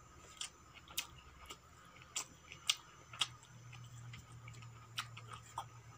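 Close-miked eating sounds of rice and vegetable curry being eaten by hand from a steel plate: about eight sharp, irregular clicks and smacks, the loudest a little under and a little over three seconds in.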